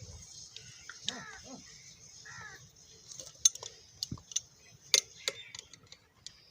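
Sharp metallic clicks and clinks of small metal parts and tools being handled, coming irregularly through the second half, with a few short bird chirps before them.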